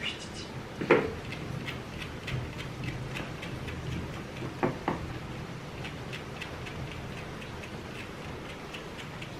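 Hair being hand-plucked from a West Highland White Terrier's coat: a quick, even run of small ticking snaps, about three a second, as tufts are pulled out between a finger cover and thumb. A sharper knock sounds about a second in, and two lighter ones a little before the middle.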